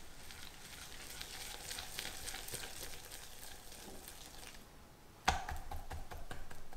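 Balloon whisk stirring sifted flour into creamed butter in a glass bowl, a soft crackly scratching. About five seconds in a sharp knock comes, then a run of quicker beating strokes.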